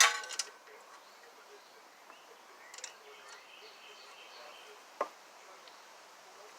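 Metal hand tool clanking with a short ring right at the start, then a few faint clicks around three seconds in and a single sharp knock about five seconds in, as the bolts on a pressure washer pump are being worked on.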